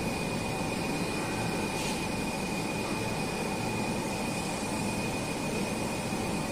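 Automatic pattern sewing machine running steadily, an even mechanical hum with a thin high whine.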